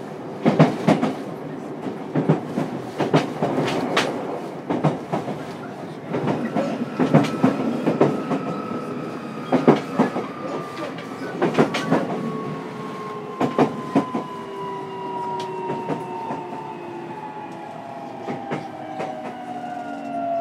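Running sound inside a JR Kyushu 303 series electric train's motor car, with the wheels clacking over rail joints in pairs and small groups. From about six seconds in, a whine from the traction motors falls steadily in pitch as the train slows for its next stop.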